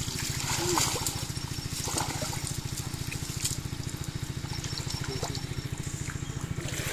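Muddy water trickling and sloshing as hands grope through a shallow flooded ditch for fish, with a few small splashes, over a steady low drone.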